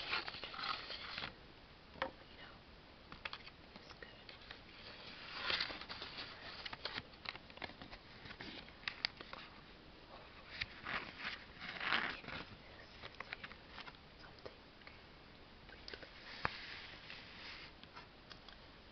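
Fingers handling a thin cardboard box, lifting its flaps, tapping and scraping the cardboard: irregular soft rustles and scrapes with scattered clicks, a few sharper taps standing out.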